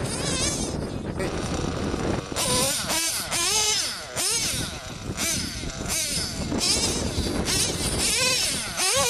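Small high-revving nitro engine of a 1/10 RC short course truck, a modified OFNA JL21 Big Block, revving up and down over and over as the truck drives across dirt.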